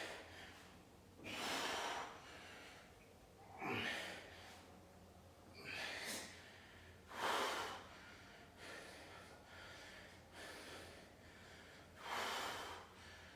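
A person breathing hard from exertion: loud, rushing breaths about every two seconds, a few softer ones, then a last loud breath near the end.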